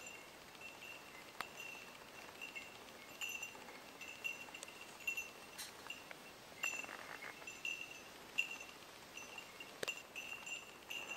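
A small bell jingling faintly over and over: short ringing notes of one fixed pitch coming in irregular clusters, as from a bell swinging while someone walks.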